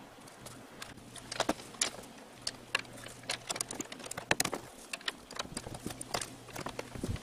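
Irregular light clicks and taps of a screwdriver and fingers working at an Onan generator's carburetor, over a faint steady hum.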